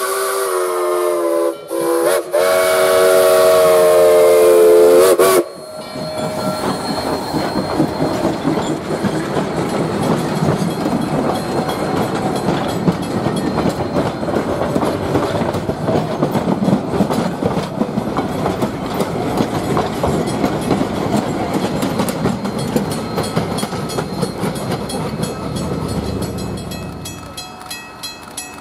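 Rio Grande Southern No. 20, a coal-fired narrow-gauge steam locomotive, blows its whistle, a chord of several notes, broken twice and cut off sharply about five seconds in. Then the locomotive and its passenger coaches roll past close by, wheels clattering and clicking over the rail joints, and the noise fades near the end.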